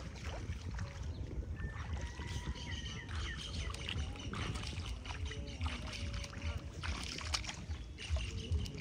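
Open-air lakeshore ambience: a steady low rumble of wind on the microphone, with a faint wavering hum and a few short bird chirps.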